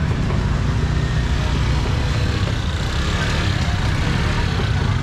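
Small motorbike engines running at low speed close by, a steady low rumble with a wash of market background noise above it.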